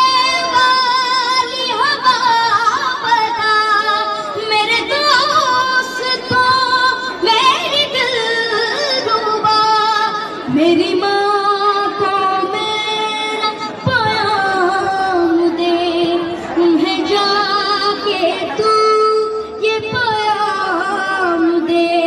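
A boy singing solo into a microphone in a high, clear voice, holding long wavering notes in phrases of a few seconds each with short breaks between them.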